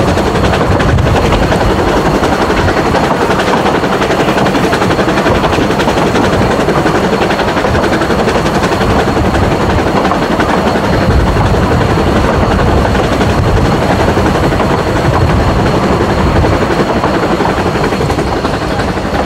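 Narrow-gauge steam train on the move, heard from an open carriage: a loud, steady rush of the locomotive's rapid exhaust beat mixed with the running noise of the carriage wheels on the track.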